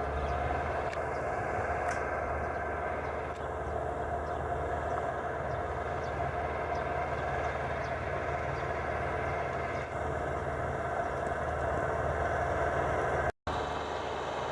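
Farm tractor engine running steadily while ploughing a rice paddy. The sound cuts out for a split second near the end.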